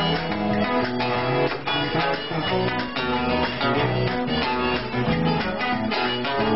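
Live acoustic guitar music: a strummed acoustic guitar with a second guitar, playing a steady rhythm with low bass notes underneath.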